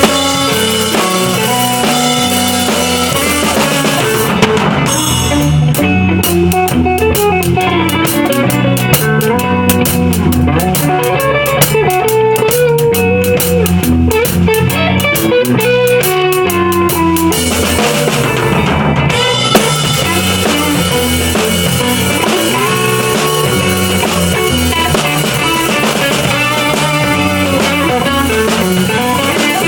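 Live loop jam of a drum kit with guitar playing over it, a steady beat throughout. Through the middle the high end flickers in a rapid, choppy pattern.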